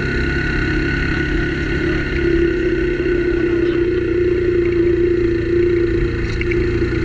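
Motorcycle engine running steadily at low road speed, a constant hum with no change in pitch.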